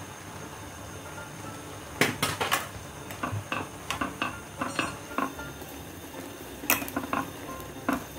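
Stainless steel tongs clacking and scraping against a cooking pot as instant noodles are stirred and lifted. A run of sharp, irregular metallic clinks starts about two seconds in.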